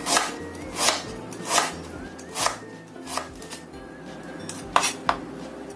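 Kitchen knife slicing ginger thinly on a wooden cutting board: five chops about three-quarters of a second apart, then a pause and two quick chops near the end.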